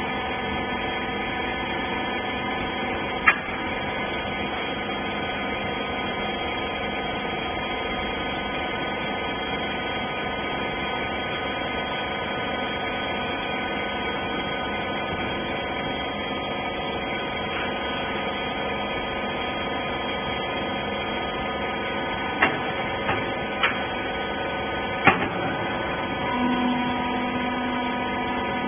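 Small rag baler running with a steady machine hum made of several steady tones. A sharp click about three seconds in, a few more clicks or knocks near the end, and a lower tone joining shortly before the end.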